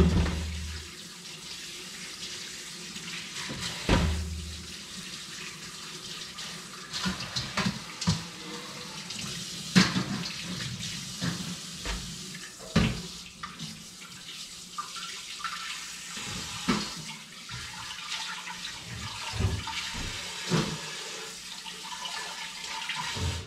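Kitchen tap running into a sink while parboiled pig trotters are rinsed by hand, with scattered knocks and clatters of a metal pot.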